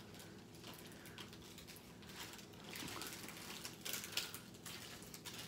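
Faint rustling and crinkling of a rolled diamond painting canvas and its plastic film cover as they are unrolled and smoothed flat by hand, with small scattered clicks, busier in the second half.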